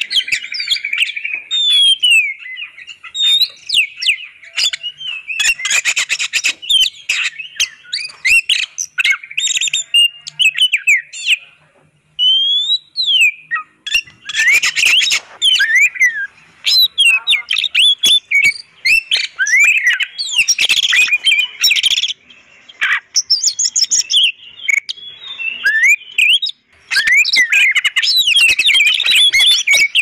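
Oriental magpie-robin (kacer) singing a rapid, varied song of clear whistles, chirps and short pitch glides, with some harsher notes mixed in. The song breaks off briefly about twelve seconds in, then resumes just as busily.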